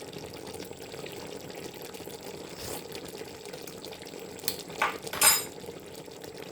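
A pot of stew bubbling gently in a saucepan, with spoon sounds against the pot and a couple of sharp metal clinks about five seconds in.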